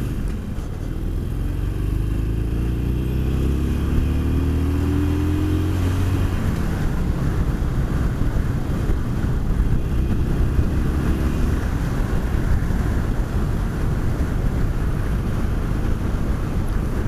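Harley-Davidson SuperLow 883's air-cooled V-twin engine pulling as the motorcycle accelerates, its pitch rising over the first six seconds or so. After that, steady wind and road noise covers most of the engine note.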